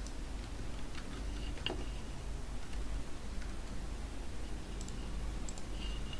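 A few scattered clicks of a computer mouse and keyboard, sparse and irregular with a small cluster near the end, over a steady low hum.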